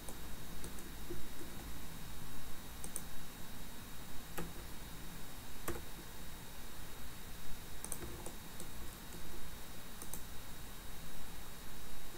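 Computer mouse and keyboard clicks, a few sharp isolated clicks, some in quick pairs, spaced a second or more apart, over a steady background hiss.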